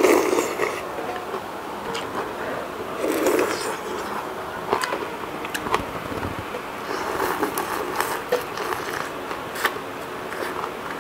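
Close-up eating sounds: a slurp from a spoonful of noodles near the start, then chewing and biting into a whole cooked shrimp, with wet mouth smacks and sharp clicks.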